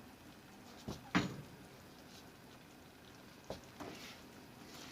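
A cooking utensil knocking against a pot four times, the loudest about a second in, as the mackerel is stirred.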